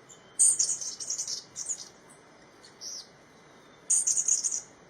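Birds calling in high-pitched chattering bursts of rapid notes: a long burst starting about half a second in, a short single call near the middle, and a second burst near the end.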